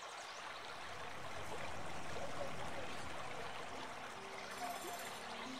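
Steady rush of flowing water, growing louder over the first two seconds. Faint sustained music notes come in near the end.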